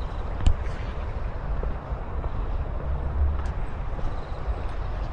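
Outdoor vehicle noise: a steady low rumble with a sharp click about half a second in.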